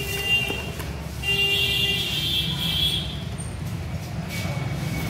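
Steady traffic rumble with a vehicle horn sounding twice, a longer blast between about one and three seconds in.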